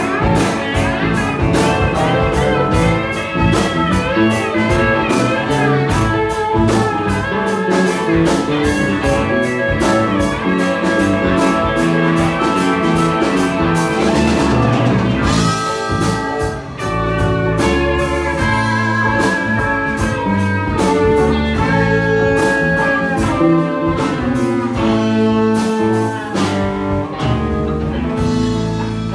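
Live blues-rock band playing an instrumental passage on electric guitars and drum kit. The cymbal strokes are dense for the first half and thin out about halfway through, where a sustained, wavering lead guitar line comes forward.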